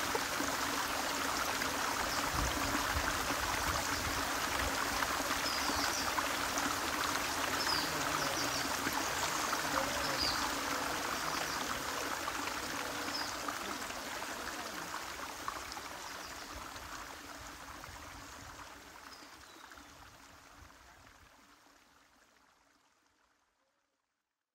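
Shallow stream running over a rock bed, a steady rush of water that gradually fades out over the last ten seconds.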